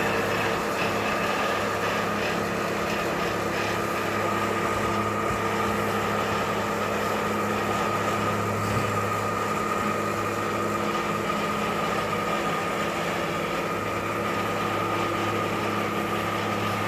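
Boat lift motor running with a steady hum.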